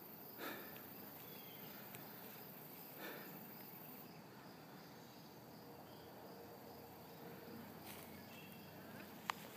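Insects trilling steadily and faintly, with two soft brief rustling noises about half a second and three seconds in.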